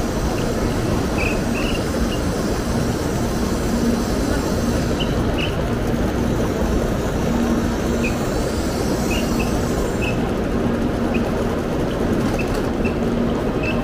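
Shinkansen bullet train running: a steady, unchanging noise with a faint low hum underneath.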